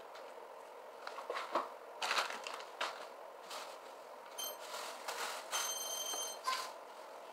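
Two high-pitched electronic beeps: a short one about four seconds in, then a longer one lasting about a second. Scattered light clicks and rustles run under them.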